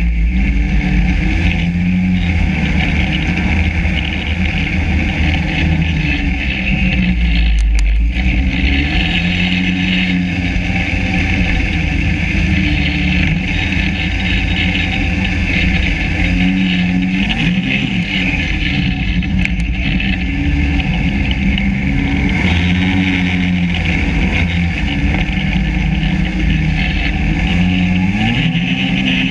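Yamaha SRV 540 snowmobile's two-stroke twin engine running continuously, its pitch dipping and rising again a few times as the throttle is worked.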